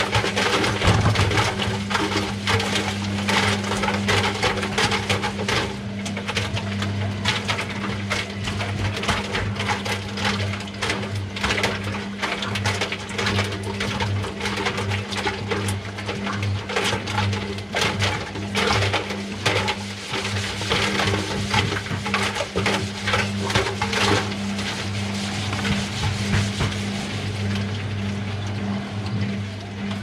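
Front-loading washing machine drum turning with a load of rubber balloons inside: a steady low motor hum under many irregular knocks and slaps as the balloons tumble against the drum.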